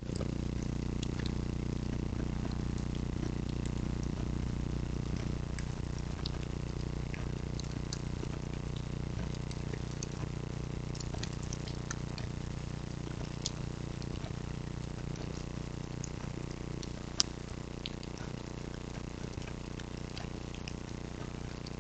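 Steady hiss and low hum from a trail camera's microphone, with scattered faint ticks and crackles and one sharper click about 17 seconds in.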